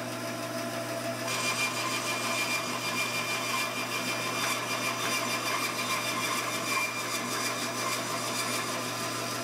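Bandsaw running with a steady motor hum; about a second in, the blade begins cutting into a wooden test board fed on a rail carriage, adding a continuous high, hissing rasp. This is a resaw test cut, made to check the blade's alignment in the kerf for drift.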